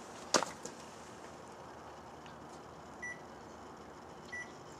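Microwave oven keypad being used to set a five-minute cooking time: a sharp click about a third of a second in, then two short high beeps, about three seconds and just over four seconds in.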